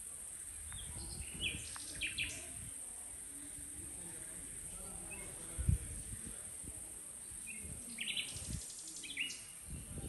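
Nightingale singing two short phrases of rapid, sharp notes a few seconds apart, over a steady high insect drone. A low thump comes about halfway through.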